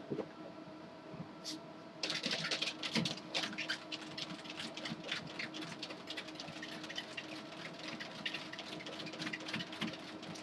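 A Jack Russell terrier's paws pattering rapidly on a moving treadmill belt, starting about two seconds in, over the steady hum of the treadmill's motor.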